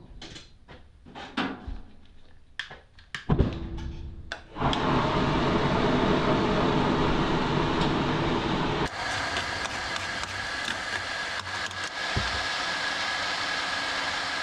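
A few scattered clicks and knocks, then, about four and a half seconds in, a DIY electric forge blower built from a car heater fan starts running with a loud, steady rush of air. About nine seconds in the sound cuts abruptly, and the blower runs on with a thin, steady whine over the air noise.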